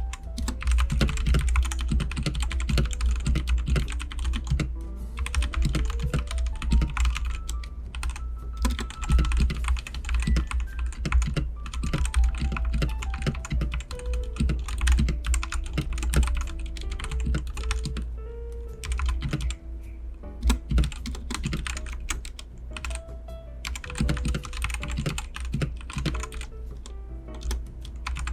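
Royal Kludge RK100 mechanical keyboard with red linear switches being typed on: fast, irregular runs of keystrokes broken by short pauses. Background music plays underneath.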